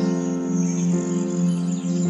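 Calm background music of sustained notes that shift to new chords about once a second, with faint bird-like chirps above it.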